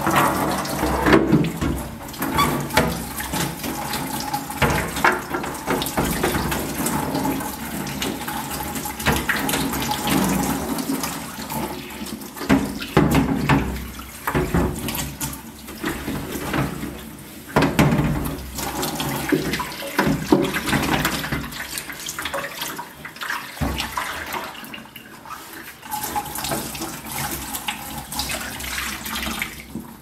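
Tap water running and splashing onto a clear plastic refrigerator drawer and into a stainless steel sink as the drawer is rinsed by hand, with uneven splashes and bumps as it is turned under the stream.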